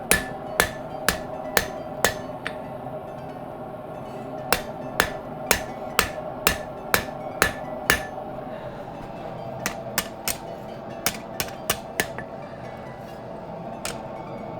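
Hand hammer striking a flatter set on a leaf-spring steel sword blade on the anvil, smoothing out forging marks: sharp metallic blows about two a second, in runs broken by short pauses.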